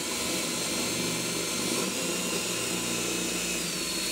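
Power drill spinning a hole saw through the veneered plywood top of an old dresser, a steady motor whine with the grinding of the cut. The pitch rises a little partway through and dips near the end.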